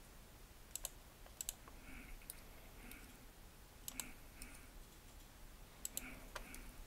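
Faint clicks of computer keyboard keys and mouse buttons: about half a dozen separate clicks, some in quick pairs, as shortcut keys are pressed and objects placed.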